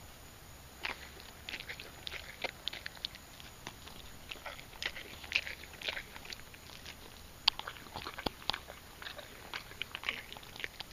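Miniature horse biting into and chewing a banana, peel and all: a run of irregular short crunches starting about a second in.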